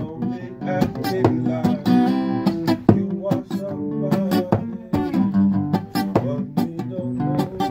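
Two acoustic guitars strummed together in a steady rhythm, playing chords.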